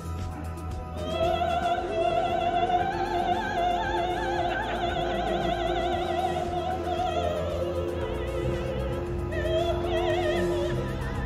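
A soprano singing opera with a wide vibrato: one long high phrase that climbs, is held, and slowly falls, then a second, shorter phrase near the end.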